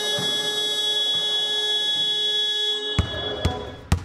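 Gym scoreboard buzzer sounding one long, steady tone at the end of the quarter, with the game clock run down to zero. It cuts off about three seconds in, and a basketball then bounces on the hardwood a few times.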